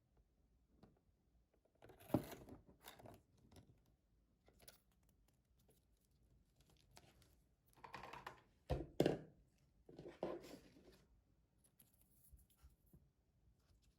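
Hands squishing and stretching slime, giving faint crackling and popping in three short bouts, the loudest about nine seconds in.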